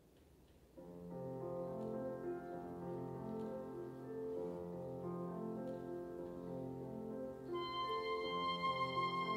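Slow background music: sustained accompaniment chords come in about a second in, and a high held melody note joins near the end.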